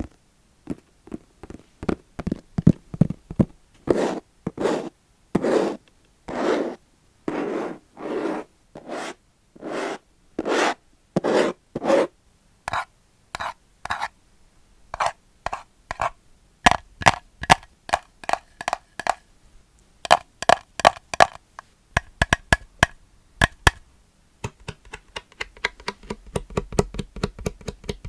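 ASMR scratching and tapping on plastic. Slow scratching strokes, a little more than one a second, give way after the middle to clusters of quick, sharp clicks, then to a dense crackling near the end.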